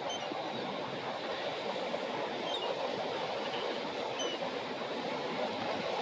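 Ocean surf breaking and washing up a sandy beach: a steady rushing noise, with a few faint high chirps over it.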